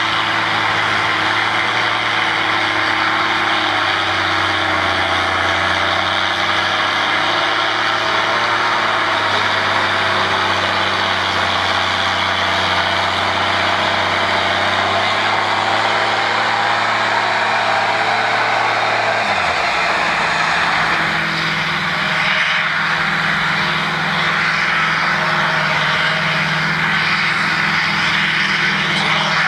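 Big farm tractor diesel engines at a tractor pull: a Ford tractor's engine runs steadily while it is hooked to the weight sled. About two-thirds through, the sound changes abruptly to a Massey Ferguson tractor's engine running under load as it drags the sled.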